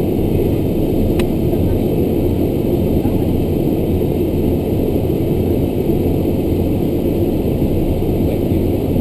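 Steady cockpit noise of a Beechcraft King Air's twin Pratt & Whitney PT6A turboprop engines running on the ground, with a low steady hum under it. A single sharp click sounds about a second in.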